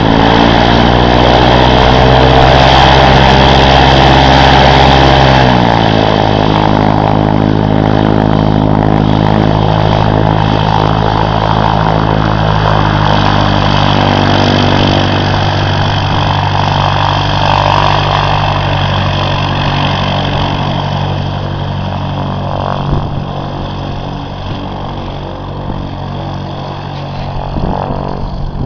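Cessna 152's four-cylinder Lycoming engine and propeller running at raised power, then throttled back about five seconds in to a lower steady speed. The sound grows gradually fainter over the last several seconds.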